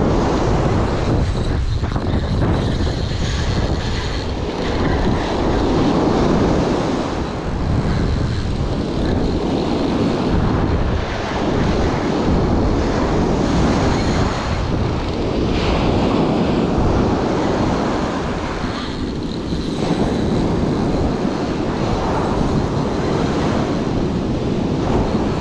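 Wind buffeting the microphone in a loud, uneven low rumble, with ocean surf washing underneath.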